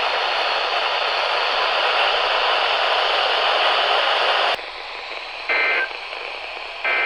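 Loud radio static hiss from a weather radio receiver, which drops to a fainter hiss about four and a half seconds in. Two short two-tone digital data bursts follow about a second and a half apart: the EAS/SAME end-of-message code that closes the warning.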